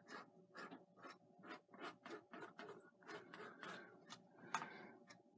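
Bristle paintbrush dabbing and scrubbing oil paint onto canvas: faint, short scratchy strokes, a few each second.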